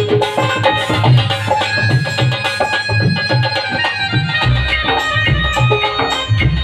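Band music played through a PA at a sound check: a steady hand-drum beat under sustained melodic lines. A deeper bass comes in about four and a half seconds in.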